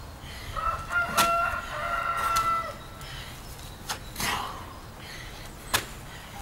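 A drawn-out bird call, held at one pitch for about two seconds, starting about half a second in. Around it come a few short thumps and scuffs from a man doing burpees on gravelly ground.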